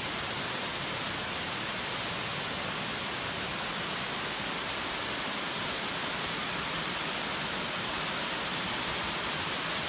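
Small waterfall spilling down stepped rock ledges: a steady, even rush of falling water.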